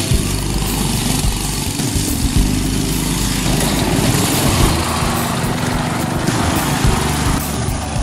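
Small engine of a homemade go-kart buggy running as it is driven, its sound shifting about three and a half seconds in.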